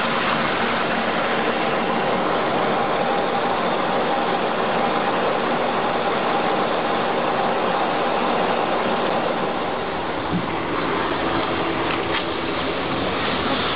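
A vehicle engine running steadily under a constant rushing noise.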